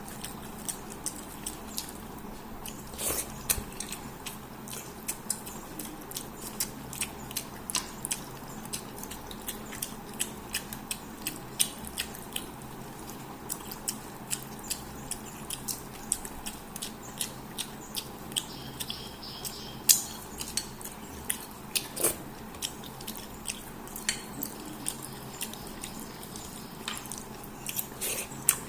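Close-miked wet chewing and mouth smacking of a person eating fish head curry with rice. Frequent short clicks and smacks, a few a second, with one louder smack about two-thirds of the way through.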